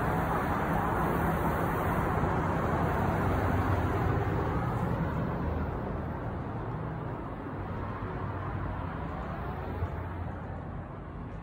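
Steady outdoor background noise with a low hum that drops to a quieter indoor room tone about halfway through, with one brief tap near the end.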